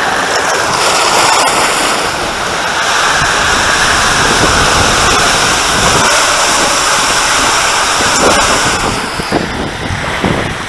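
Water rushing and a tube sliding down an enclosed water-slide tube, a loud steady rush of noise that eases about nine seconds in as the ride comes out into an open flume.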